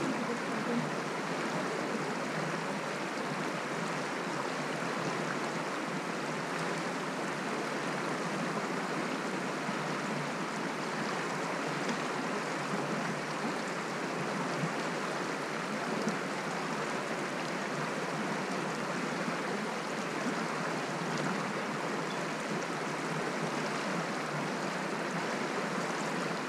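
Shallow, rocky mountain stream flowing over stones, a steady rushing babble heard from right at the water's surface.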